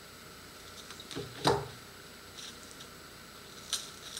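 Quiet crinkling and small clicks of paper being cut and peeled off the front of a firework rocket with a pocket knife, with one louder knock about a second and a half in and a sharp click near the end.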